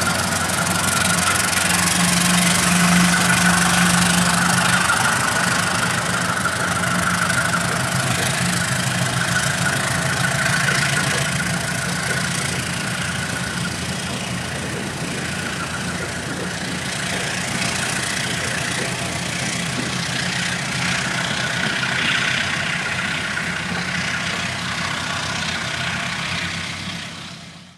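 CC 203 diesel-electric locomotive's engine working under load as it pulls a passenger train away, with the hiss and rumble of the carriages rolling past. The engine note is strongest in the first few seconds, eases as the train recedes, and fades out at the very end.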